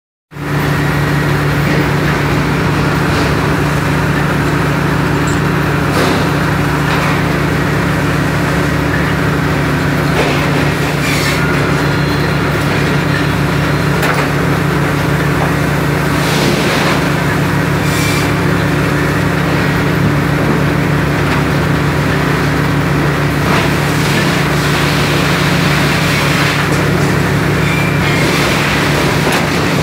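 Heavy machinery running with a steady, unchanging hum, with an occasional knock or clank.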